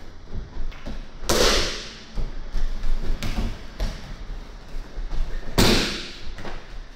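Two heavy thuds of a body landing on tatami mats in breakfalls as an aikido partner is thrown with a jo staff, one about a second in and one near the end, with softer footfalls and knocks on the mats between them.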